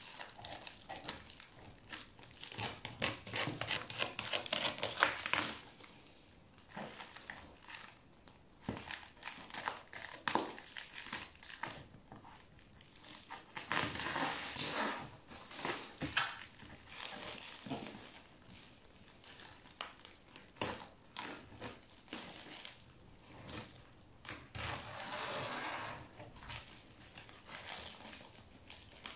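Black plastic wrapping around a cardboard box being cut with scissors and pulled off, crinkling and crackling in irregular bursts with short sharp snips and clicks.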